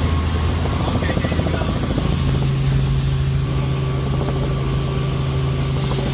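Helicopter engine and rotor running in flight, a loud steady drone with a fast pulsing chop. Its low hum steps up in pitch about two seconds in.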